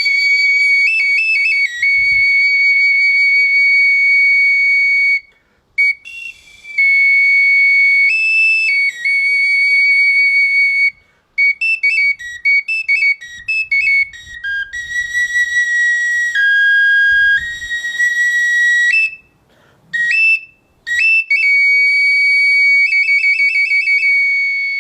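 Tezcatlipoca flute (tlapitzalli) played: a high, whistle-like tone held on a few notes with stepped changes of pitch. Quick short notes come in the middle, then a drop to its lowest note and a fast trill near the end, with brief pauses between phrases.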